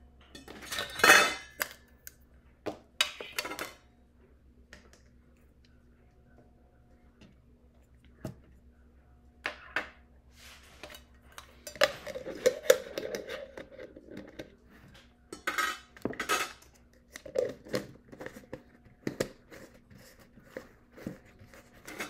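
Glass jars of small rhinestones handled and set down on a wooden table, clinking, with the stones rattling inside, in several separate clatters; the loudest comes about a second in.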